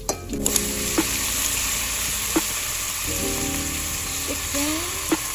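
Chicken pieces sizzling in hot oil with onion and ginger in an aluminium pot; the sizzle starts about half a second in and holds steady, with a few sharp taps of a metal spatula against the pot.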